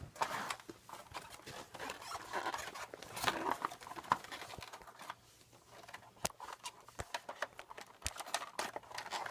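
Rustling and scraping of plastic and cardboard packaging, with scattered sharp clicks, as a Nerf blaster is worked out of its box.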